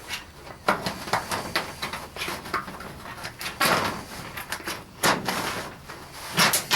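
Tin snips cutting sheet aluminum: a run of irregular snips with the metallic crunch and crinkle of the sheet, the loudest cuts about three and a half, five and six and a half seconds in.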